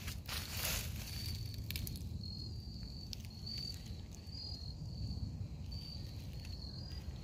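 An insect trilling in a thin, high, steady tone, over a low rumble, with a few brief rustles in the first couple of seconds.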